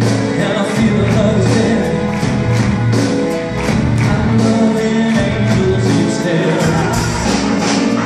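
Upbeat pop music with a steady beat and singing.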